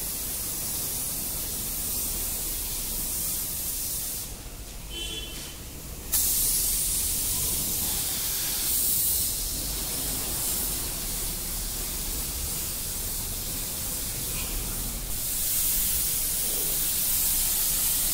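Compressed-air gravity-feed spray gun hissing steadily as it sprays primer onto a car's body panels. The spray stops for about two seconds around four seconds in, then starts again abruptly.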